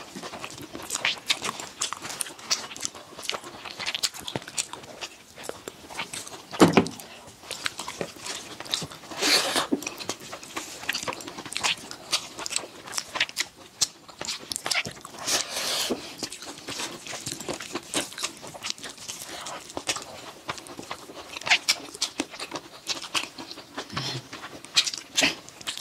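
Close-up eating sounds of people eating rice with their hands: irregular wet lip-smacking and chewing, with one louder, deeper mouth sound about six and a half seconds in.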